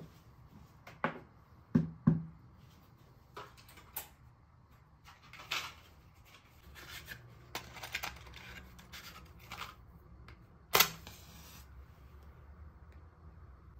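A ceramic cup is set down on its saucer on a wooden desk, giving a few sharp knocks about two seconds in. A box of matches is handled softly for several seconds, then a match is struck and flares near the end, a sharp scrape followed by a short hiss.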